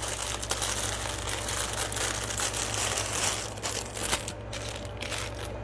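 Plastic bag crinkling and rustling as it is handled, with jewelry being put back into it.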